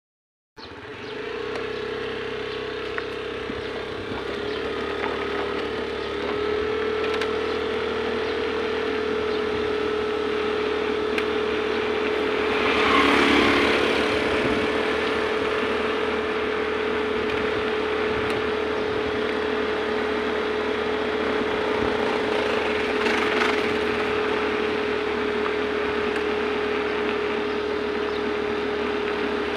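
A steady machine hum with a constant mid-pitched tone over a noisy hiss, swelling briefly about 13 seconds in and again near 23 seconds.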